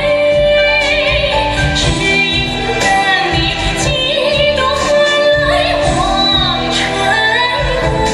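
Music: a woman singing a melody over instrumental accompaniment, with a regular beat.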